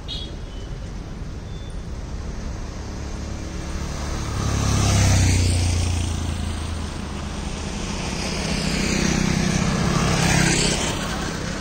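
A heavily loaded lorry passes by with a deep engine hum and tyre noise, loudest about five seconds in. Near the end a motor scooter's small engine swells and passes close by.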